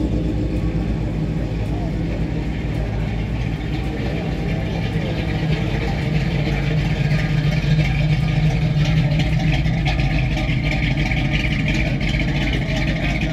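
A car engine running steadily, with people talking in the background.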